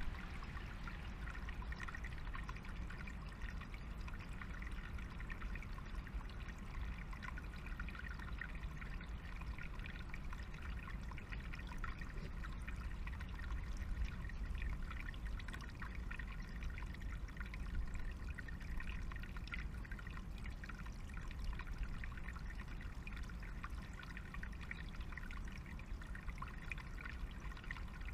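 Small forest stream trickling steadily over stones, with a low steady rumble underneath.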